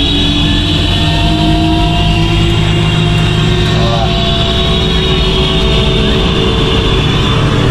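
Helicopter engine and rotor running on the pad just before takeoff, heard from inside the cabin as a loud steady drone and whine, its pitch slowly rising as it comes up to speed.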